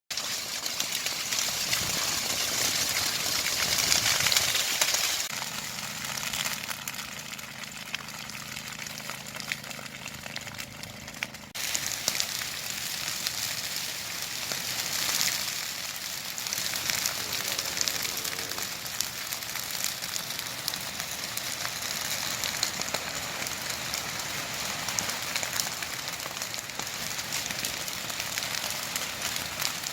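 Dry grassland burning in a controlled field burn: the fire crackling and popping densely. The sound changes abruptly about five and about eleven seconds in, with a faint low hum between.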